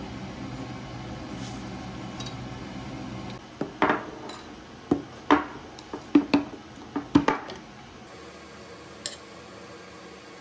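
A steady hum for about three seconds, then a run of about a dozen sharp clinks and knocks as kimchi is taken from a glass container and served onto a ceramic plate: dishes and a utensil knocking together. One faint click follows near the end.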